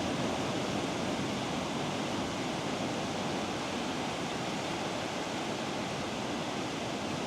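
Ocean surf on a beach: a steady, unbroken wash of breaking waves with no single crash standing out.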